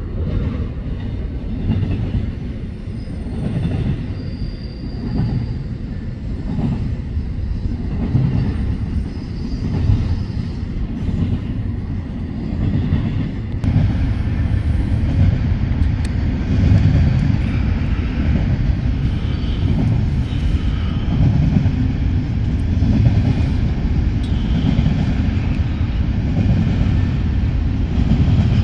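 Union Pacific intermodal freight train rolling by, a steady low rumble of wheels on rail that grows a little louder and fuller about halfway through.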